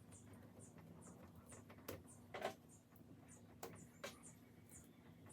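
A few light clicks and taps from fuel injector retaining clips being handled and fitted back onto the injectors on the fuel rail, the loudest about halfway through.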